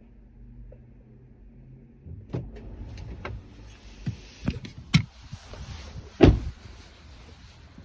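A run of separate clunks and knocks from a truck being opened up at its door and hood, the loudest about six seconds in.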